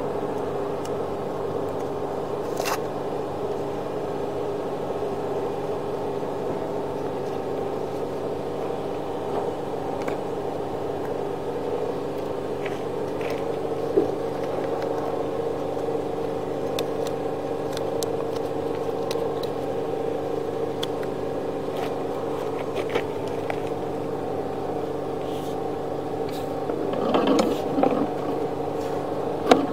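A steady mechanical hum, with a few faint clicks and a short, busier burst of noise near the end.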